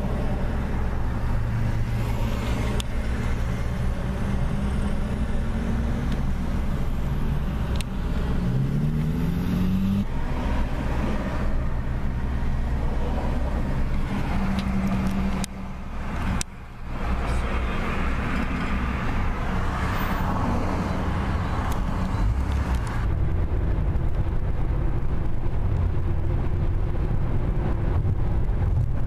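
Car engine and road noise heard from inside the cabin as the car pulls away from a stop and accelerates onto the freeway. The engine's pitch climbs several times about eight to ten seconds in, and steady tyre and road noise carries the later part.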